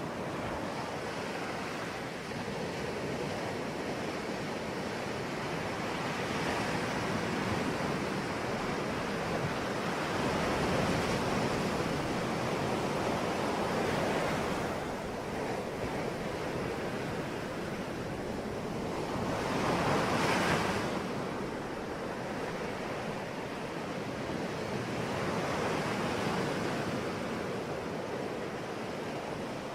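Ocean waves breaking and washing on the shore in a continuous hiss, swelling and ebbing every few seconds, with the strongest surge about two-thirds of the way through.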